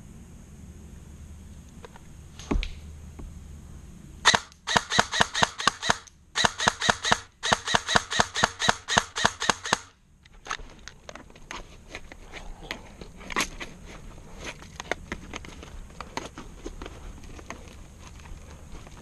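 Airsoft gun firing quick strings of single shots, about five a second, in three strings over roughly six seconds, starting a few seconds in. A single thump comes before it, and fainter scattered clicks follow.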